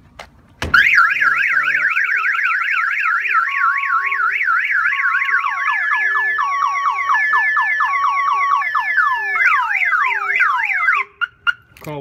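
Excalibur 1510 car alarm siren sounding in full alarm, set off right after a thump about a second in. It cycles through a fast rising-and-falling warble, then alternating steady tones mixed with falling sweeps, then fast falling sweeps, and cuts off suddenly about eleven seconds in.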